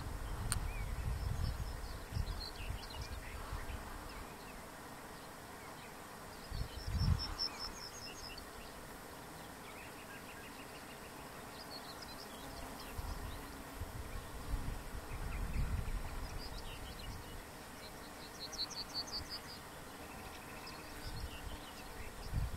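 Yellowhammer singing faintly: several short trills of quickly repeated high notes, spaced a few seconds apart.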